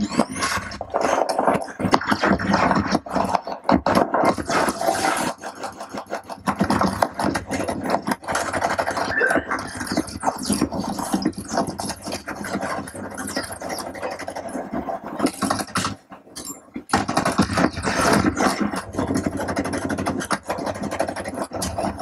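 Shooter video game sound played loud through a Platin Milan WISA 5.1 wireless surround speaker system and picked up by a room microphone: a dense run of sharp cracks and bangs over constant noise, dropping away briefly about sixteen seconds in.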